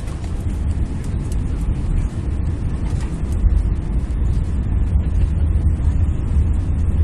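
Cabin noise inside an Airbus A380 on its takeoff roll: the four engines at takeoff thrust and the runway rumble make a deep, steady roar that slowly grows louder as the aircraft accelerates.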